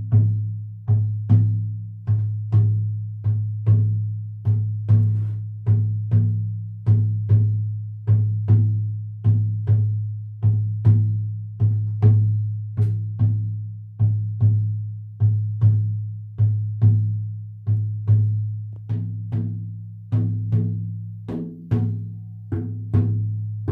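Hide frame drum struck with a wrapped beater in a steady, even beat: the repetitive drumming of a shamanic journey. Each stroke gives a sharp attack and a low, ringing boom that carries on into the next stroke.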